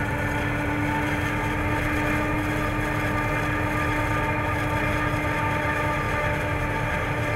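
New Holland FR 9080 self-propelled forage harvester running under load while chopping sorghum, a steady heavy mechanical drone with a constant whine. The tractor pulling the trailer alongside runs with it.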